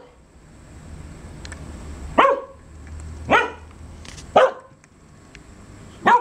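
Keeshond barking: four short barks, the first about two seconds in, then roughly one a second with a longer gap before the last.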